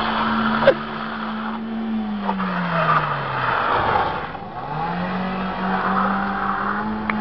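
A car drifting, its engine held at high revs over skidding tyres. The revs drop away about two to three and a half seconds in, then climb back and hold.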